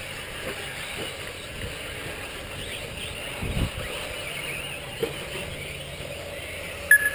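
Radio-controlled short-course trucks racing around a track, their motors making a steady thin whine with small wavering rises in pitch. There is a low thump about halfway through and a short beep near the end.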